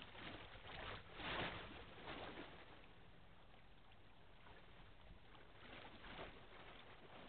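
Faint open-air riverside ambience: a low, even hiss with a few short swells of noise about a second in, near two seconds and again near the end.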